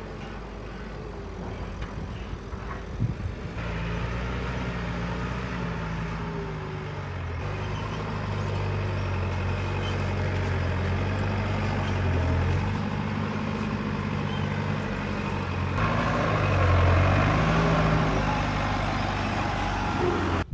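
Heavy diesel vehicle engines running under load, their pitch rising and falling as they rev, with several sudden changes where the sound cuts from one engine to another.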